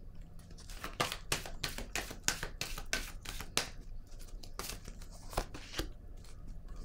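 Tarot cards being handled and laid down on a wooden table: a quick run of dry card clicks, snaps and rustles that thins out in the second half.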